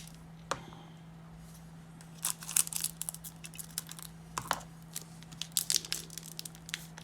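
Plastic and foil crinkling in short, scattered bursts as trading cards are handled, with clusters a couple of seconds in, around the middle and near the end.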